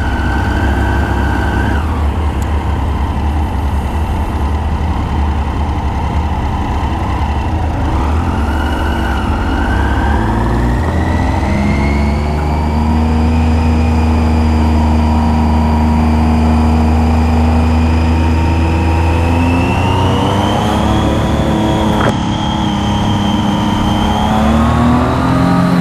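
Triumph Street Triple R's inline three-cylinder engine running under way, pulling at low revs at first, then rising in pitch as it accelerates from about eight seconds in, holding steady, and rising again near the end.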